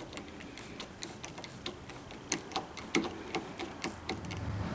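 Light, irregular clicks and taps, a few a second with some louder ones midway: screws being set and turned into a plastic lock-installation drilling jig on the door edge.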